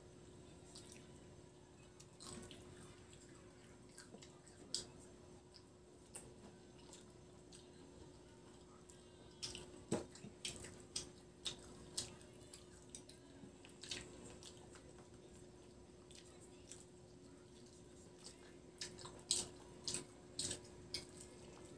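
Close-up eating sounds: wet chewing and lip smacks, as chicken and rice are eaten by hand, with scattered clicks over a faint steady hum.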